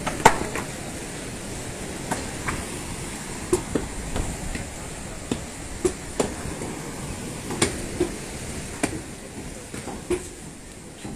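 Hand-tool demolition: irregular hammer blows and short ringing metal clanks, roughly one a second, the loudest near the start. Under them runs a steady rush of wind and surf.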